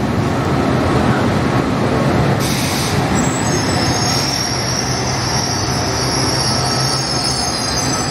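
SNCF regional train running slowly alongside the platform, with a steady low hum. About two and a half seconds in comes a short hiss, then a high-pitched steady brake and wheel squeal as the train slows to stop at the platform.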